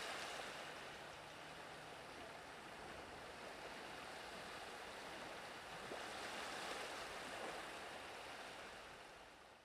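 Faint, even wash of distant sea surf, swelling slightly about two thirds of the way through and fading out at the very end.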